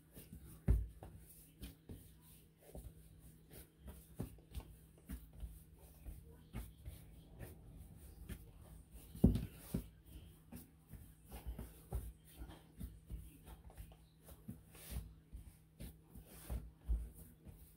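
Hands patting and pressing bread dough flat on a granite countertop: soft, irregular pats and taps, with a louder thump about a second in and another near the middle. A faint steady hum runs underneath.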